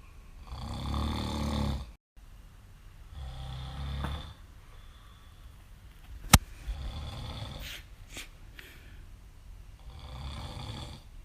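Snoring: four slow snores, each about a second long and about three seconds apart. A single sharp click just past the middle is the loudest sound, with a few fainter clicks shortly after.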